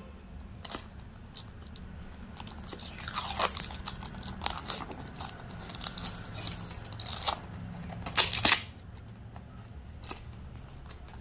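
Clear plastic shrink-wrap and tape being cut and peeled off small cardboard product boxes: irregular crinkling and crackling, with a few louder rips about two-thirds of the way through, over a low steady hum.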